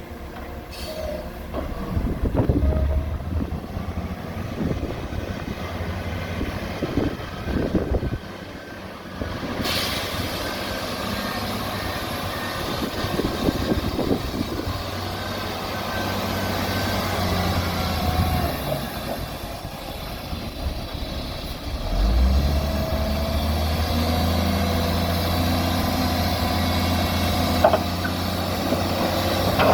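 Heavy diesel engines of the working machines, a truck and a bulldozer, running steadily. About 22 seconds in, one engine gets louder and deeper, as if put under load.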